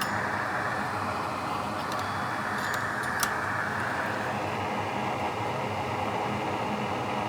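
Steady hiss of blowing air from bench equipment during micro-soldering, shifting slightly in tone about four seconds in, with a few light clicks about two to three seconds in.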